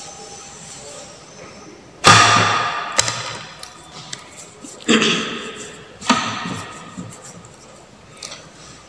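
Four loud knocks on something hard, spread over about four seconds, each ringing and dying away over roughly a second.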